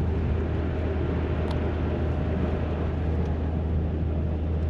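Truck driving on a slushy road, heard from inside the cab: a steady low engine and road drone with an even hiss of tyres on wet slush.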